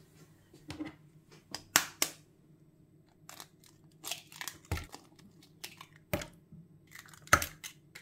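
Eggs being cracked into a plastic mixing bowl: a series of sharp shell cracks and taps, about seven in all, the loudest about two seconds in and near the end.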